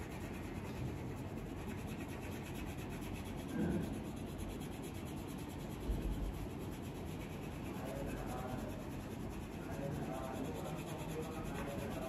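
Crayon rubbing back and forth on paper as a drawing is coloured in, a steady scratchy rubbing, with two soft knocks midway.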